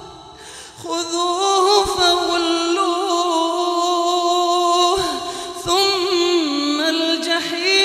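A male imam chanting Quran recitation in the melodic tajweed style, one voice holding long, ornamented notes. He pauses for breath at the start, comes in under a second in, and takes another short break about five seconds in.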